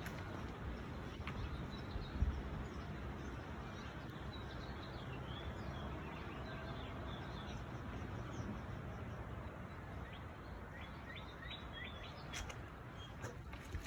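Steady outdoor background noise with scattered short, high bird chirps. There is a thump about two seconds in and a few sharp clicks near the end.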